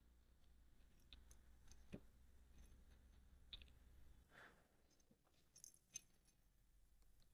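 Near silence: a faint low hum with a few scattered light clicks.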